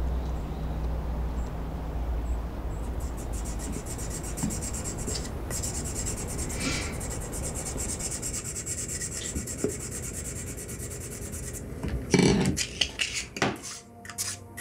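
Sandpaper rubbed by hand over a wooden tobacco-pipe bowl: a fast, even run of rasping strokes, then a few louder, separate strokes near the end.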